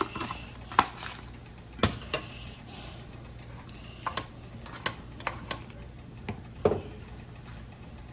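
Scattered sharp clicks and light knocks of kitchen containers and utensils against a bowl while seasoning is added for macaroni and cheese, at irregular intervals about one to two per second.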